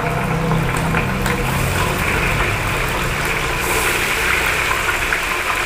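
Food deep-frying in a wok of hot oil over a gas burner: a steady sizzling hiss over the burner's low rumble. The sizzling gets louder about two seconds in.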